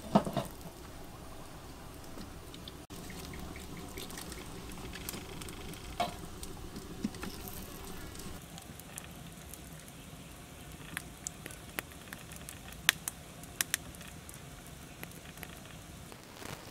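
A metal wok lid clanks down once at the start. Then a wood cooking fire crackles with scattered sharp pops over a low steady hiss, as whole fish grill on a wire rack above the flames.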